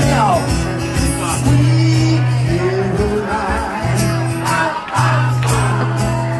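Music starts abruptly: a wavering, gliding melody over held bass notes and a regular beat.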